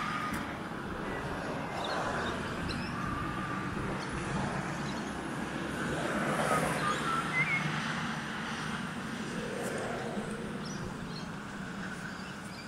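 Outdoor park ambience: a steady low background rumble, with a few short bird chirps and faint distant voices now and then.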